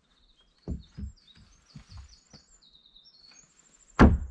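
Wooden boards knocking softly several times as a board is set against a plank wall, then a loud sharp hammer blow on the wood near the end. A small bird sings a run of quick high chirps throughout.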